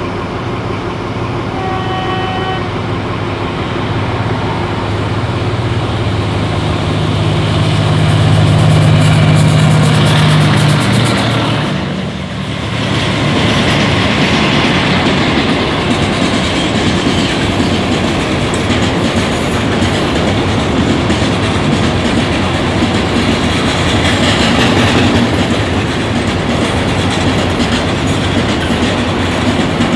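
Alsthom AHK diesel-electric locomotive No. 4212 gives a short horn blast, then its engine rumble swells as it comes up and passes close by. A train of oil tank wagons then rolls past with a steady rattle and clickety-clack of wheels over the rail joints.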